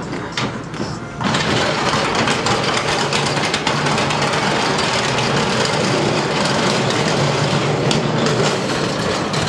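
Hand truck wheels rolling across the truck's metal floor and down the metal loading ramp: a loud, steady rattling noise that starts about a second in.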